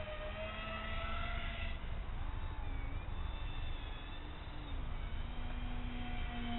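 Twin motors and propellers of a radio-controlled foam flying boat whining, their pitch shifting up and down as the throttle changes, with wind buffeting the microphone throughout.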